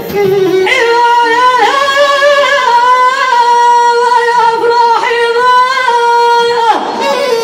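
A woman's voice sings long, high held notes with wavering ornamental turns in Amazigh (Berber) folk song, breaking off in a falling slide near the end.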